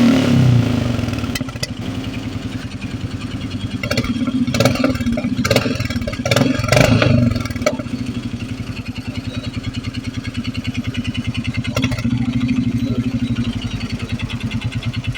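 Royal Enfield Meteor 350's single-cylinder engine settling to idle after a rev falls away at the start, then idling with a steady, even pulse, with a few brief clattery knocks about four to eight seconds in. The owner reports an engine noise problem on this bike.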